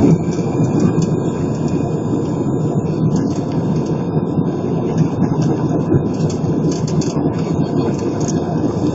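An Airbus A320 heard from inside the cabin during its takeoff roll: the engines at takeoff power and the run along the runway make a loud, steady rumble with a faint steady whine on top.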